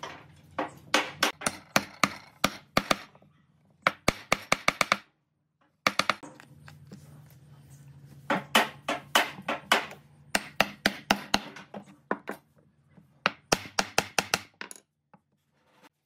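Hammer driving nails into pine blocks: runs of quick, sharp strikes, several a second, in bursts with short pauses between, over a steady low hum.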